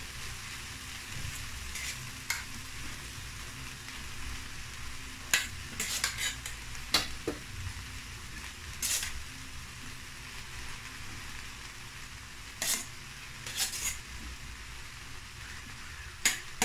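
Vegetables sizzling steadily in oil in a pan as cooked basmati rice is spooned in, with several sharp knocks and scrapes of a metal spatula against the pan and a steel strainer.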